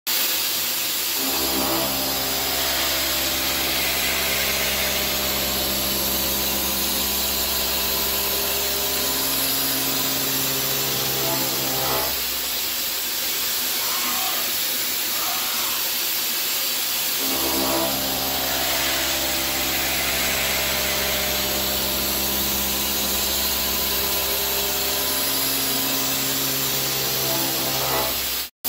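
CNC milling machine with a milling cutter cutting a forged-steel workpiece: a steady machine hum of several held tones over a constant hiss. The tones drop away for about five seconds midway, then resume.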